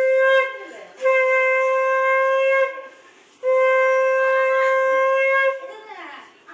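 Conch shell (shankha) blown in long, steady, single-pitch blasts: one ends just after the start, then two more of about two seconds each follow with short gaps.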